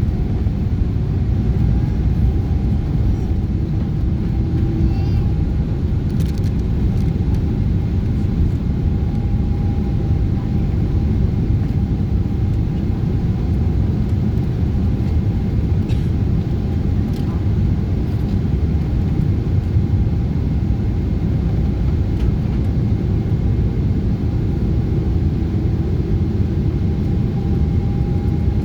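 Steady cabin noise of a Boeing 777-200ER descending toward landing: a deep, even rumble of engines and airflow, with a faint steady hum riding above it.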